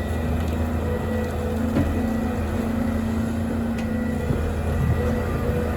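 Diesel engine of a Volvo EC300E excavator running steadily with a low, even hum, with a few faint clicks and knocks from the machine.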